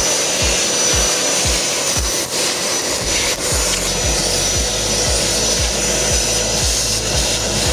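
Vacuum cleaner running steadily with a high whine as its hose nozzle is drawn over a dirty rubber cab floor, sucking up grit. Background music with a steady beat plays underneath, with a bass line coming in about three seconds in.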